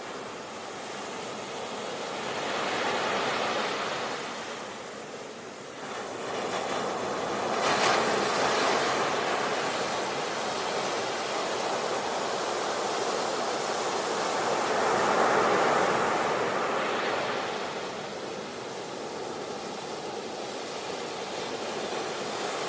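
Sea waves breaking and washing onto the shore, a steady rush of surf that swells and fades in slow surges every several seconds.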